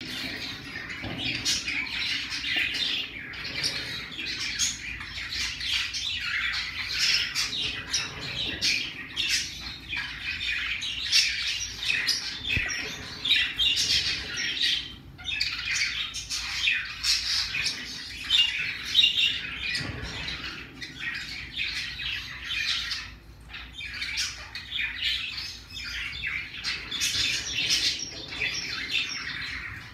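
Pacific parrotlets chirping and chattering: a steady stream of short, high calls with brief pauses.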